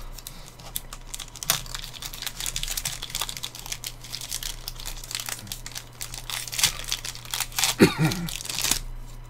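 Crinkling and tearing of a sports card pack's plastic wrapper as it is handled and opened, with irregular crackles throughout. A short voice sound comes near the end.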